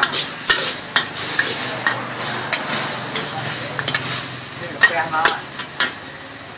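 Two metal ladles scraping and clacking against a large wok while sliced meat and green vegetables sizzle in it, stir-fried over a wood fire. There is a steady frying hiss with sharp, irregular clacks of metal on metal throughout.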